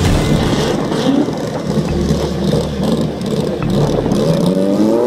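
Drag-race car's engine running and being revved while staged at the start line, with a rev that rises and falls near the end.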